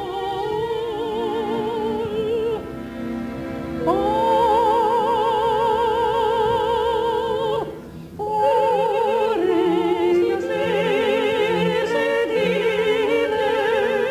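Operatic soprano singing long held notes with a wide vibrato, accompanied by orchestra; she breaks off briefly about eight seconds in, then goes on.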